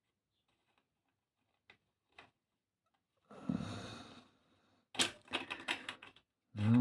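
Metal clicking and rattling of hand tools on a scooter's steering column as a tight nut is worked off the fork's threaded steerer tube, with a scrape partway through and a quick run of clicks near the end. A person's voice starts humming just before the end.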